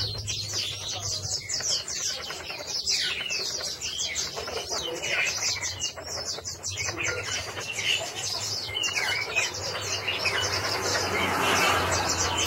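Small caged yellow-and-green songbird singing a long, fast, continuous warbling song of rapid high notes, over a low steady hum.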